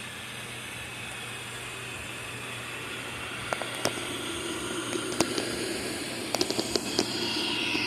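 Budget robot vacuum running with a steady whirring hiss that grows slowly louder, with a scatter of sharp clicks and ticks from about halfway in.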